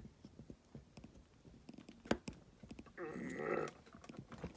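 Light clicks and taps of a plastic part being forced out of a die-cast toy car body, with one sharper click about two seconds in and a brief rougher scrape around three seconds in.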